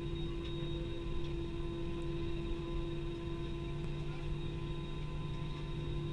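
Steady cabin hum inside an Airbus A320 holding on the ground: the idling jet engines and the cabin air-conditioning make one even drone, with a low rumble beneath it.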